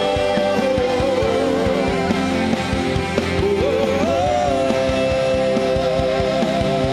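Live worship band playing a slow, sustained passage: held chords, drum hits and a long melody line with vibrato that slides up to a higher held note about four seconds in.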